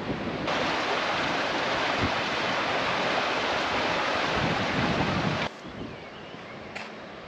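Sea surf washing on a shore, a steady rush of noise with wind rumbling on the microphone. It cuts off abruptly about five and a half seconds in to a much quieter background, with a faint click near the end.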